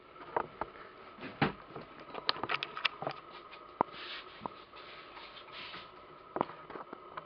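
Irregular clicks and knocks of a border collie's claws tapping and scrabbling as it gets up onto a kitchen counter, with a loud knock about a second and a half in and a quick run of sharp clicks soon after.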